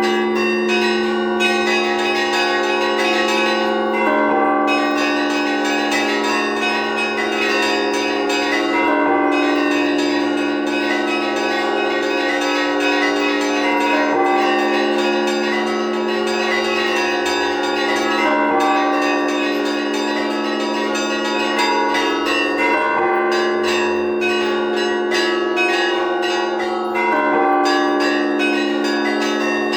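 Orthodox cathedral bells rung by a bell-ringer in an improvised peal: quick, dense strikes on the small high bells over the long, unbroken ringing of the larger low bells.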